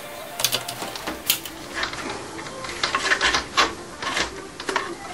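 Irregular metallic clicks and taps as a hand tool works on an angle grinder's disc clamping nut and the cutting disc is handled, several knocks falling close together about three seconds in.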